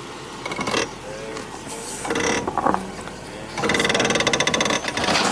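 Off-road vehicle scraping down a rock on a short slide: a brief scrape about two seconds in, then a louder rapid grinding rattle lasting about a second and a half, as the vehicle slips on the rock.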